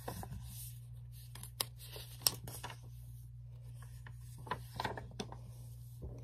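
Rustling and tapping of a paperback picture book being handled and opened to its first page, with a couple of sharp clicks in the first half and a cluster of small knocks near the end, over a steady low hum.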